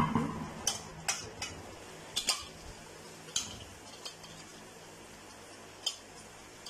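Par-boiled rice poured into boiling jaggery syrup in an aluminium karahi, the rush of grains fading out in the first half second, followed by a scattering of sharp metal clinks of the bowl and slotted spoon against the pot.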